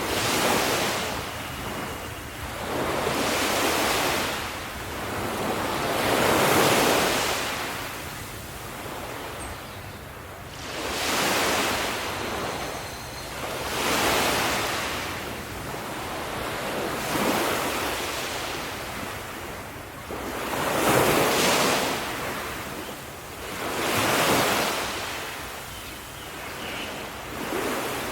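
Ocean waves breaking on a shore, surging and washing back in rolling swells about every three seconds, with some wind noise.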